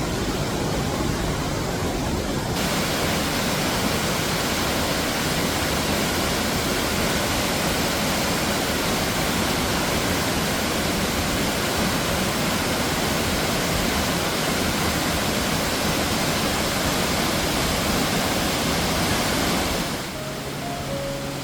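Waterfall at the Falls of Foyers, a steady rushing of falling water, which fills out and grows brighter about two and a half seconds in. Near the end the water drops away and music begins.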